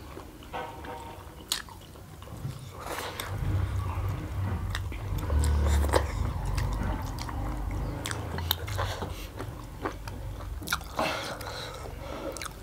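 Two people slurping and chewing spicy instant noodles, with wet slurps and repeated sharp clicks and smacks. A low rumble runs through the middle.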